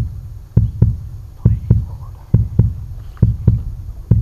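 Heartbeat sound effect: a steady double thump (lub-dub) repeating about once every 0.9 seconds, deep and loud, laid over a tense fight with a fish.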